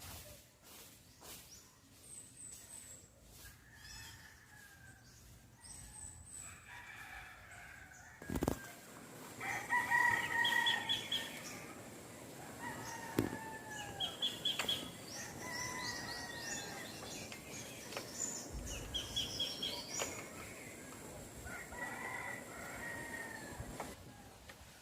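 Roosters crowing several times, each crow a second or two long and falling in pitch at the end, starting about a third of the way in. Faint high chirps come before them.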